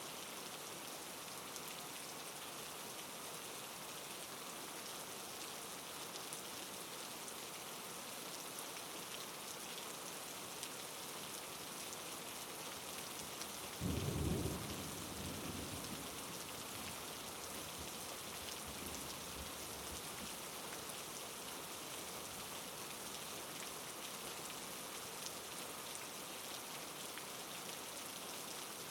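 Steady rain falling, with a single low rumble of thunder about halfway through that starts suddenly and fades over a couple of seconds.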